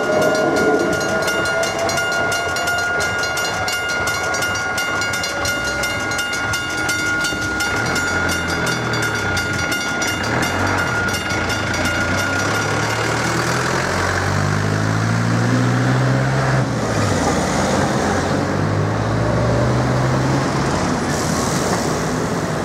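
Level-crossing bell ringing rapidly as a regional electric train pulls away, the train's motor whine rising briefly at the start. The bell stops about halfway through as the barriers lift, and car engines idle and then rev up in rising pitch as cars drive across the tracks, two passing close near the end.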